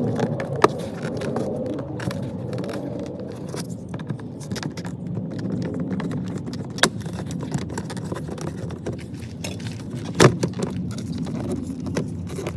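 Hand work on a car's plastic door trim and power window switch: small rattles, scraping and light clicks of tools and parts. Three sharper clicks stand out, the loudest about ten seconds in.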